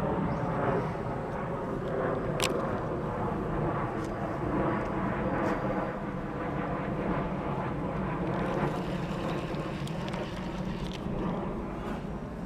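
A steady engine drone with a stack of even tones holding level throughout, and one sharp click about two and a half seconds in.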